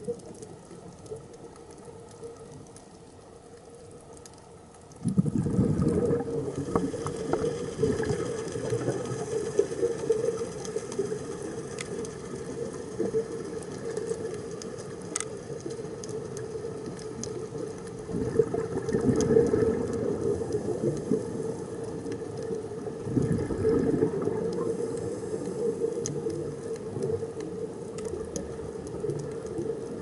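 Underwater noise picked up by a diving camera: a low, rushing water sound that starts suddenly about five seconds in and swells a couple of times, with a few faint sharp clicks.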